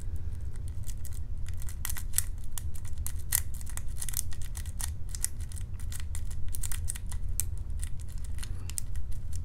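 Lock pick rocking and twisting against the pins of a pin-tumbler lock core under light tension from a tension wrench, giving a run of small, irregular metal clicks as pins set or drop back.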